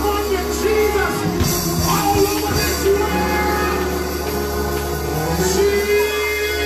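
Gospel music with band accompaniment and a wordless vocal line, ending on a long held note.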